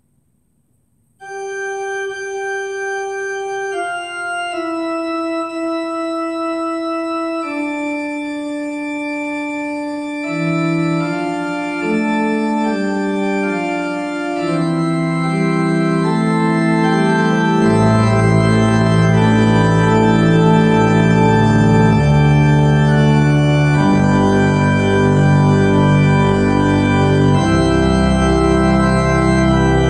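Organ music, slow and sustained. It begins about a second in with a single held note, more voices join, and deep bass notes come in about halfway, making it fuller and louder.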